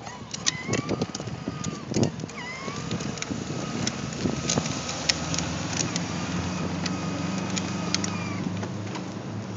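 Small electric motor of a battery-powered Dora ride-on toy quad whining as it drives, starting with a short rising pitch and cutting off and restarting twice before a longer run that stops near the end. Plastic wheels click over grit on asphalt, and a low hum comes in during the second half.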